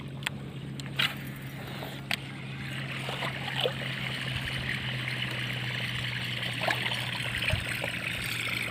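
A surface lure being reeled back across calm water on a casting rod: a steady whir from the reel with the light splashing and gurgling of the lure, and a few sharp clicks in the first two seconds.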